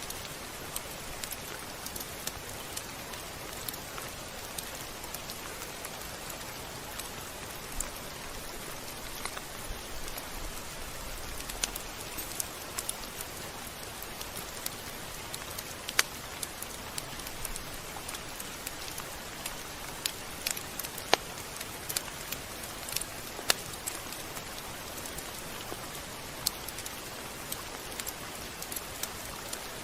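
Steady rain falling, an even hiss with scattered sharper drop ticks, a few of them louder.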